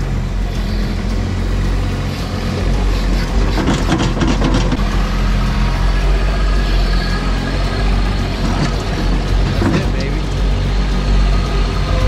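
Bobcat MT100 mini track loader's diesel engine running steadily while the raised bucket dumps soil and debris into a steel dump trailer, with a brief rattle of falling dirt about four seconds in and again near ten seconds.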